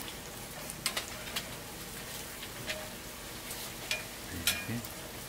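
Hotteok (Korean sweet filled pancakes) sizzling steadily in oil on a flat steel griddle, with several sharp clicks of metal tongs against the griddle; the loudest click comes near the end.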